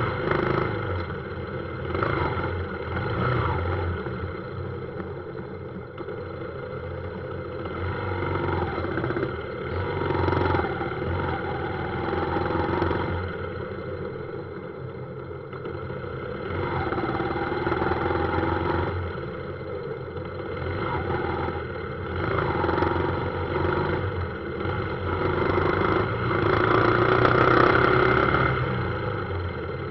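A motorbike engine running on the move in heavy street traffic, speeding up and easing off every few seconds, with other motorbikes and cars around it; it is loudest near the end.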